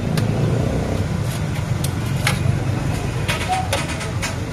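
A long knife and metal spatula clicking and scraping as chicken is shaved off a vertical shawarma spit. There are a few sharp, irregular clicks over a steady low rumble of street traffic.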